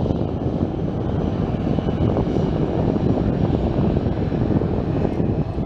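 Boeing 737-800's CFM56-7B turbofan engines running at taxi power as the airliner taxis past: a steady rumble with a faint high whine over it.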